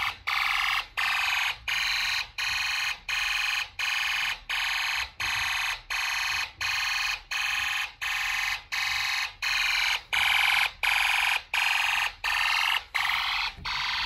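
Snap Circuits alarm IC modules sounding a pulsed electronic fire-alarm tone through the board's sounder. It comes as short, even beeps, about three every two seconds: the homemade fire alarm system in alarm after a manual pull station was pulled.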